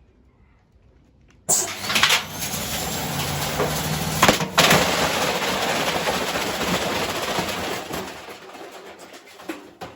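A badly damaged Hoover washer-dryer starts up with a sudden, loud mechanical clatter and banging, several hard knocks among it as the broken drum and smashed cabinet shake. Near the end it fades and the machine stops, which the owner puts down to something arcing or the motor dying.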